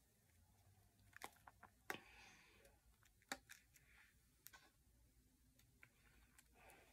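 Near silence with faint scattered clicks and light rustling as a hair tie is looped around a twisted section of hair.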